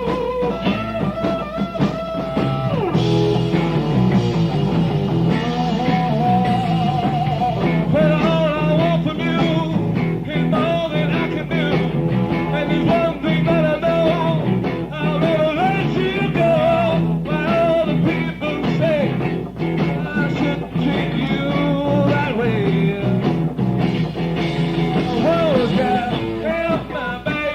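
Live rock band playing a blues-rock passage: a bending lead line over a steady bass line and drums, heard on a lo-fi live recording.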